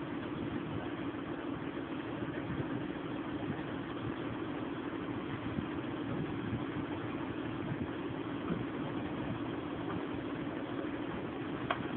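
Boat engine idling steadily, a constant drone. A single brief click near the end.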